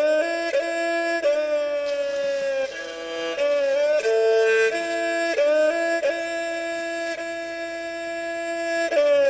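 Background music: a solo melody of long held notes that slide and step between pitches, with a second lower note sounding beneath it.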